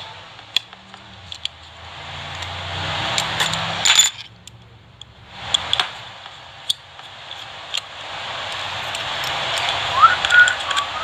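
Light metallic clicks and clinks of small repair tools and phone parts, over a rushing noise that swells and fades twice.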